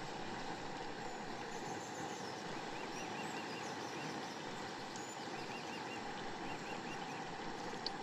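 Samosas deep-frying in hot oil, a steady sizzle, with faint bird chirps around the middle and a small click near the end.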